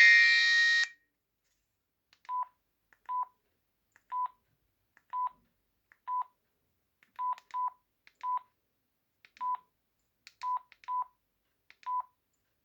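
Bq Flash 2444 mobile phone: a ringtone melody cuts off about a second in, then about a dozen short single-pitch key-press beeps follow at uneven intervals.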